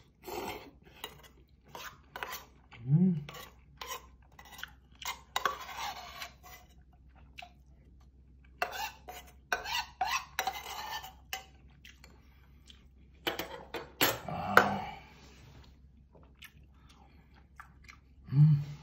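Metal spoon and chopsticks clicking and scraping against a small aluminium bowl while someone eats kimchi stew with udon noodles: slurping and chewing, with a few brief vocal sounds from the eater.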